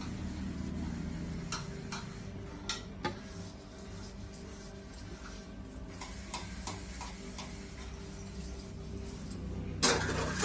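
Scattered light clicks and taps over a steady low hum. Near the end comes a louder burst of a metal spoon scraping and digging into the cooked rice of a dough-sealed biryani pot.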